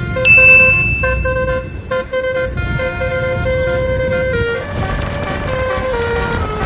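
Bus basuri telolet horn playing a tune of held notes that step from pitch to pitch, over a low rumble. A high shrill tone sounds over the first two seconds, and the horn is loudest at the start.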